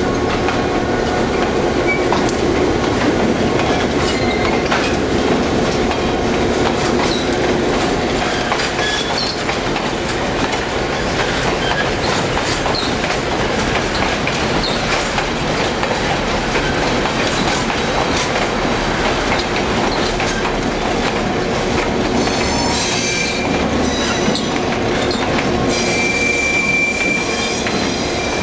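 Passenger train of diesel locomotives and heritage coaches rolling past at close range, a steady rumble of running gear with wheels clicking over rail joints. A thin high wheel squeal rings out briefly near the end.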